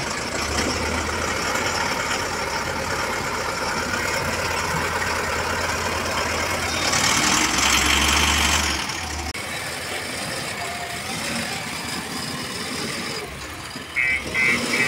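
Mahindra Arjun Novo 605 DI tractor's diesel engine running, swelling louder for about two seconds around the middle, then quieter. Near the end a rapid row of short high beeps starts, a backhoe loader's reversing alarm.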